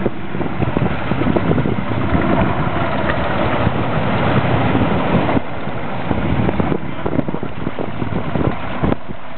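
Yamaha outboard motor running on a Zodiac inflatable boat, with wind buffeting the microphone.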